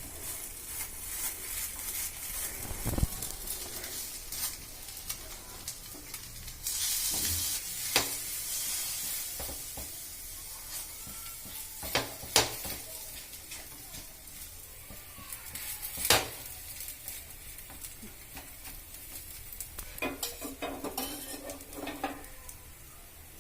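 Rava rotti dough being patted out by hand on a hot oiled pan, the oil sizzling with a few sharp knocks against the pan. A louder hiss for a second or so about seven seconds in.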